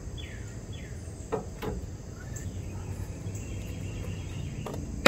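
Crickets chirring steadily outdoors, with two faint falling bird chirps about half a second in. Light clicks of parts being handled, then one sharp, loud knock near the end.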